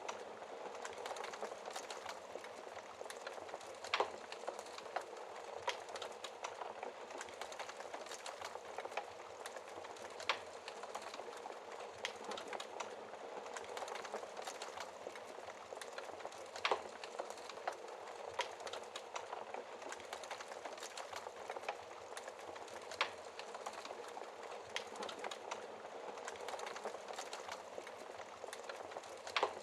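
Wood fire burning in a fireplace: a steady crackling hiss with scattered small crackles and a sharp, louder pop about every six seconds.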